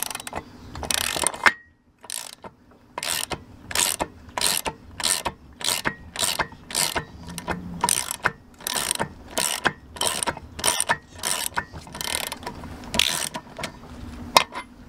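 Ratchet wrench with a 1-inch socket clicking in short, repeated back-and-forth swings, about two a second, as it backs off an outboard's propeller nut. There is a short pause near the start.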